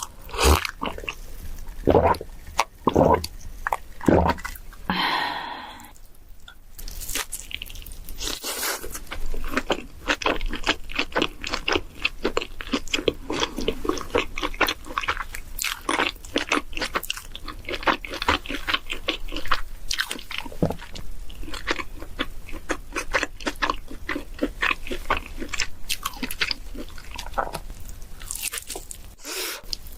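A person chewing and crunching food, with a dense, steady run of crisp crunches and bites. About five seconds in there is a hiss lasting about a second.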